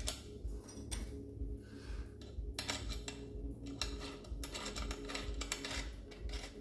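Bolts being tightened to secure the lid of a stainless steel battery box: quick, irregular metallic clicking of the tool and hardware.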